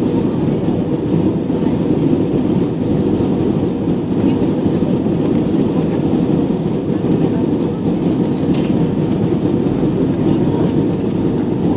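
Steady low rumble of an Airbus A320-214's CFM56 engines and airflow heard inside the passenger cabin, with a faint steady hum on top.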